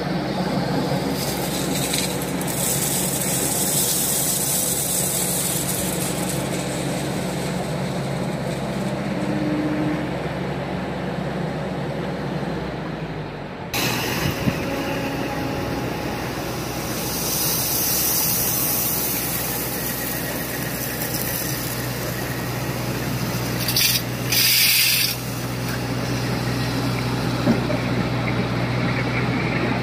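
Kobelco SK140HD excavator's diesel engine running steadily under load, with several hissing, rattling rushes of crushed stone pouring from the bucket into a steel dump-truck body.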